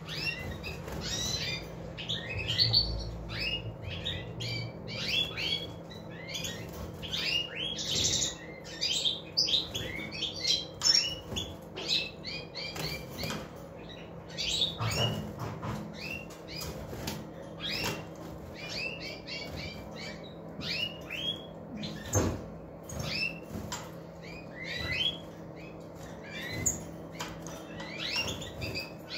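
Caged European goldfinches twittering and chirping in quick, high, busy phrases, with a few sharp knocks.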